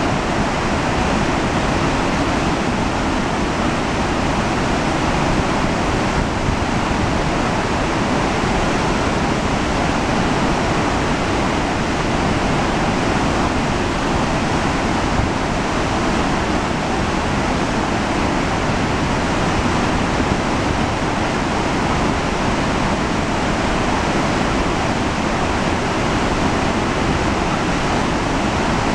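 Spring-runoff river in flood pouring through wide-open dam gates and down a rocky gorge: loud, steady rushing of whitewater.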